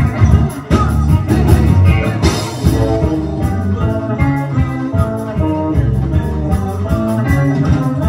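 Live synth-pop band playing: electric guitars, accordion and melodica over drums, with a man singing. From about three seconds in, sustained chords change in steps.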